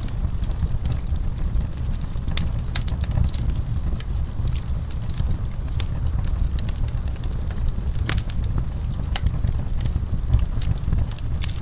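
Wood fire in a fireplace crackling: scattered sharp pops and snaps over a steady low rumble of the flames, with a louder pop about eight seconds in.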